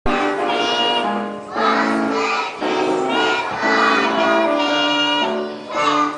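A group of young children singing a song together, in short phrases.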